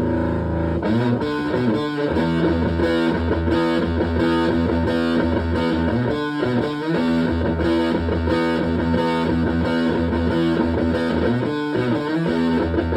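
Electric guitar (Epiphone Les Paul) played through a Tone Bender MKII-style germanium fuzz pedal with Mullard OC81D transistors, into a Fender Twin Reverb–style amp. A held fuzzy chord rings out, then a distorted riff starts about a second in, broken by short gaps.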